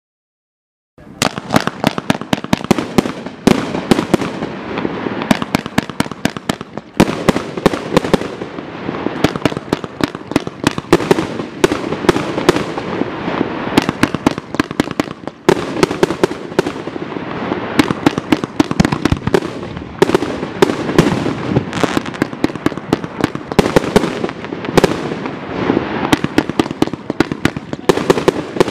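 A 72-shot compound fireworks cake of the machine-gun type firing. About a second in it starts a dense, continuous run of sharp launch reports and bursting salute bangs, many per second, which keeps up without a break.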